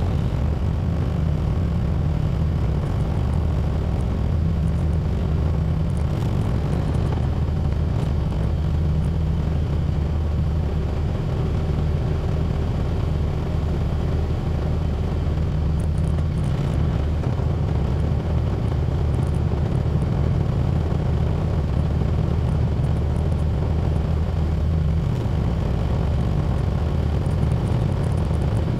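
Small tractor's engine running steadily under load while plowing snow, a low, even drone.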